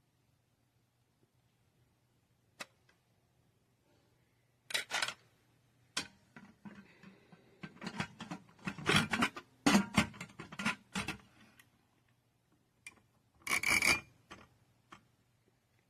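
Intermittent handling noises: a single click, then clusters of rubbing, scraping and light knocks, with one more burst near the end, over a faint steady low hum.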